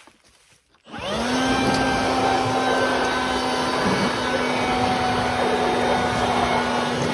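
A small electric motor switches on about a second in, spinning up fast, and runs with a steady loud whirr and hum, like a handheld air blower or vacuum.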